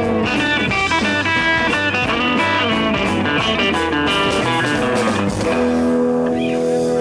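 Rock band playing an instrumental blues-rock jam. An electric guitar plays a quick run of short lead notes, then settles on held notes for the last second and a half, over steady low backing.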